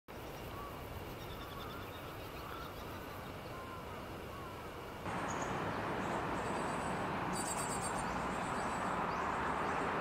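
Small birds chirping over a steady background hiss. About five seconds in, the background gets louder and the chirps become shorter and higher-pitched.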